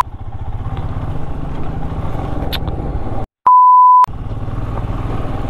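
Motorcycle engine running steadily while riding on a rough road. A little over three seconds in the sound cuts out briefly and a single steady censor bleep covers about half a second, then the engine noise returns.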